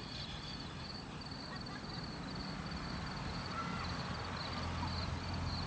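A car drives past on the road below, its low rumble growing from about halfway through. A faint high chirping pulses a few times a second in the background.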